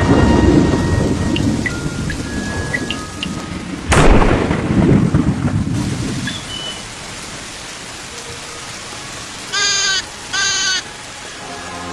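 Thunderstorm: heavy thunder rumbling over falling rain, with a sharp thunderclap about four seconds in that rolls away. Near the end a sheep bleats twice, two short calls.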